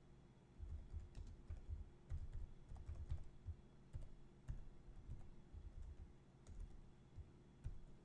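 Computer keyboard typing: quiet, irregular keystrokes in short runs with brief pauses between them.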